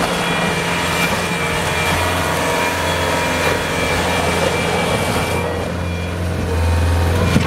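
Bobcat S185 skid steer's diesel engine running steadily with a thin high whine above it, getting a little louder near the end.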